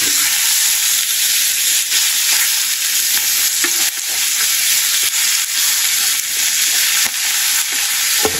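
Slices of fatty pork sizzling steadily in a hot frying pan, with a plastic spatula now and then scraping the pan and turning the pieces.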